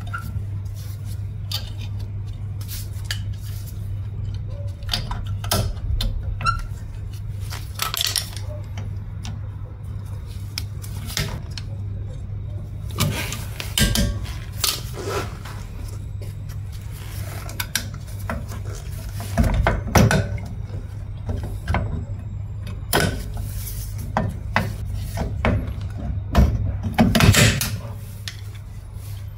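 Metal clinking, scraping and rattling of drum-brake shoes and their steel return springs being worked into place on the backing plate. Irregular clicks and knocks throughout, loudest about halfway through and near the end, over a steady low hum.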